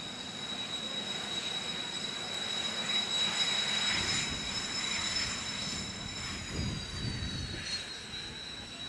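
Kawasaki T-4 jet trainers taxiing, their twin turbofan engines running with a steady high-pitched whine over a rushing roar. The roar swells in the middle as a jet passes close, and one whine tone drops slightly in pitch near the end.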